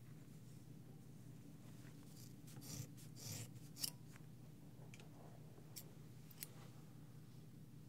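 Haircutting scissors snipping close to a binaural microphone, a few sparse single snips during detailed cutting. The loudest snip comes about four seconds in, just after a soft brushing rustle.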